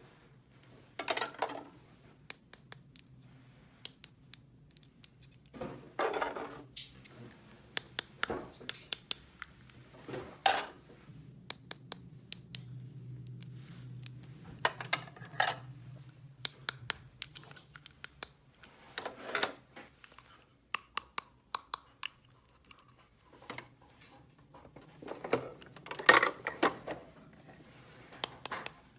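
Small plastic toy pieces handled and set down: frequent sharp clicks and taps, with a short stretch of rustling or scraping every few seconds.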